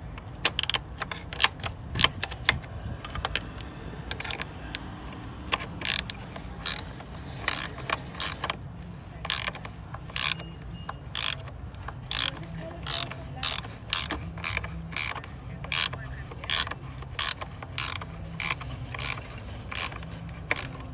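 Ratcheting combination wrench clicking in short bursts as it is worked back and forth on a bolt, irregular at first, then steady at about two strokes a second: tightening the 13 mm bolt of a car battery's hold-down bracket.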